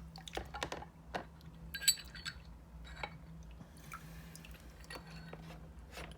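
A Bahco 114 pipe wrench being put into a bath of Evapo-Rust rust remover: scattered small clinks and knocks of metal against the container, with some liquid sounds, the sharpest knock about two seconds in.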